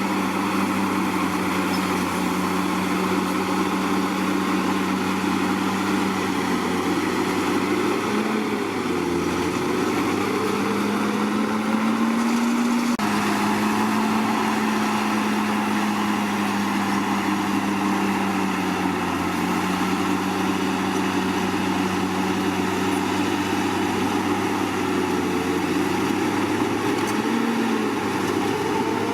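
Komatsu D61PX bulldozer's diesel engine running steadily under work, its pitch rising and falling as the load changes, most clearly from about eight to twelve seconds in and again near the end.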